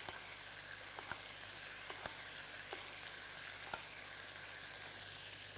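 Ribeye steak sizzling in a hot pan as melted butter is spooned over it: a steady frying hiss with a few sharp clicks about once a second.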